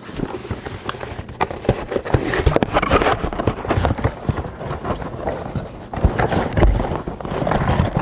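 Cardboard graphics-card box being handled and worked open: a dense run of irregular knocks, taps and cardboard scraping and rustling as the card is worked out of its packaging.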